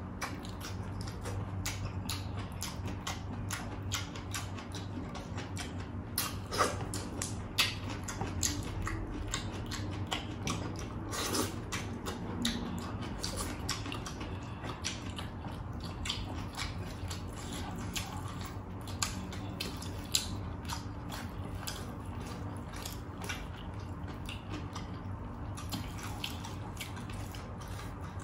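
Close-miked eating by two people using their hands: many short wet clicks of chewing and lip-smacking, with fingers squishing saucy rice and chicken, over a low steady hum.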